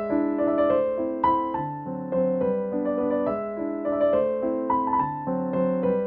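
Background piano music: a steady flow of notes over chords.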